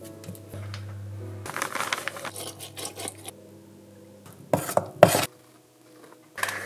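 Kitchen handling sounds from Leckerli spice-biscuit making: hands pressing and rubbing dough on a metal baking tray, scraping and rustling, then liquid poured and splashing into a metal pan, loudest briefly about four and a half to five seconds in.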